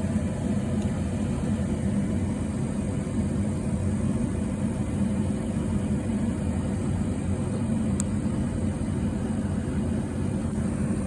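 1991 Buick LeSabre's 3.8-litre V6 idling with a steady, even low rumble.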